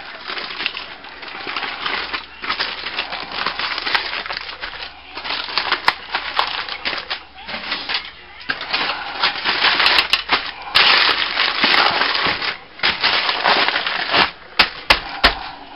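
Aluminum foil crinkling and crackling as it is folded and pressed around a rack of ribs, in irregular spurts with short pauses between handlings.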